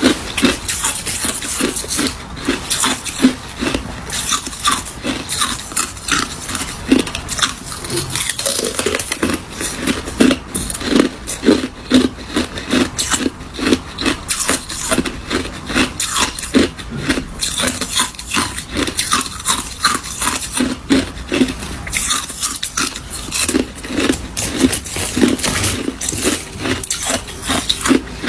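A person chewing and crunching ice: a rapid, continuous run of crisp crunches, several a second.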